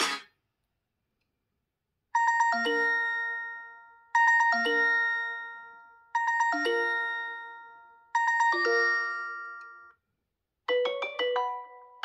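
OnePlus 9 Pro ringtone: a short phrase of a few chiming notes, repeated four times about two seconds apart, each fading away. After a brief pause near the end, a different, faster ringtone of quick falling notes begins.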